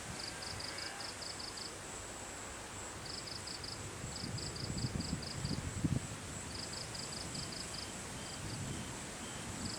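Insects chirping in short trains of rapid pulses, several bursts a few seconds apart, over a steady thin high insect whine. Wind buffets the microphone underneath in low gusts, strongest about halfway through.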